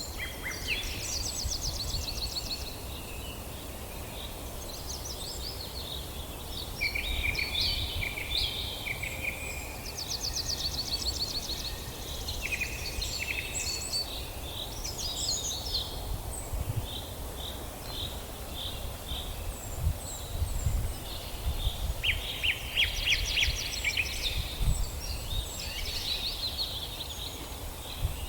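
Several forest songbirds singing and calling, with overlapping chirps, whistles and fast trills coming and going throughout, over a steady low rumble.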